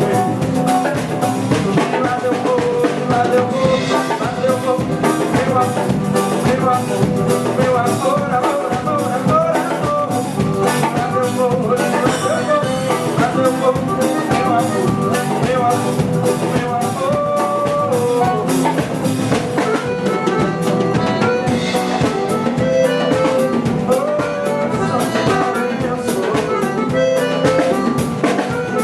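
Band playing an instrumental stretch of an axé carnival song: a drum kit keeps a busy, steady beat under melody instruments.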